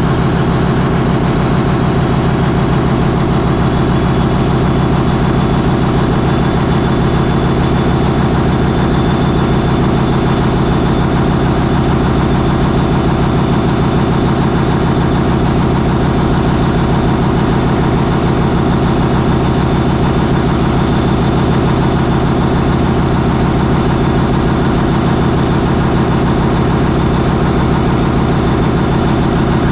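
MAN 20V28/33D STC marine diesel, a 20-cylinder V main engine, running loud and steady at about 800 RPM.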